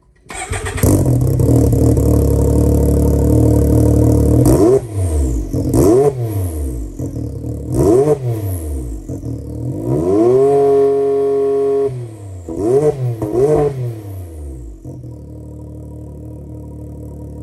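Stock Can-Am X3 turbocharged three-cylinder engine running through a stainless Treel Performance sport exhaust without a resonator, loud. It idles, is blipped three times, held at higher revs for about two seconds, blipped twice more, and then drops back to idle.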